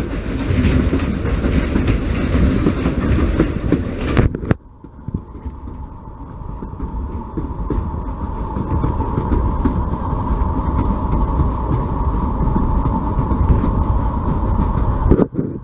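Steam locomotive working hard as it pulls its coaches up a slope, heard from an open coach behind it with the coaches rumbling along the rails: a loud racket. About four seconds in the sound drops abruptly to a quieter, steadier running rumble.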